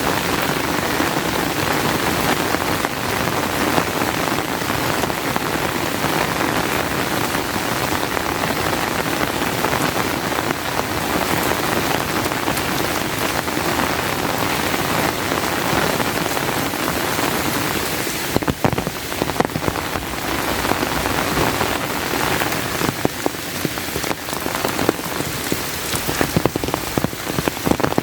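Steady, fairly heavy rain falling. In the last third it is joined by sharp, irregular taps.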